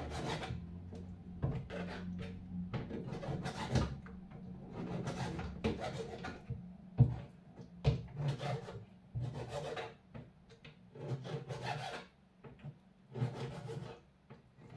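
Kitchen knife cutting thawed liver on a wooden cutting board: irregular scraping and sawing strokes, broken by sharp knocks of the blade against the board, the loudest about halfway through.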